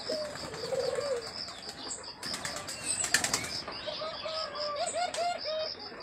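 Caged hill myna making soft low calls, with a rapid flutter of wing beats about two seconds in that lasts about a second and a half, then a string of short soft notes.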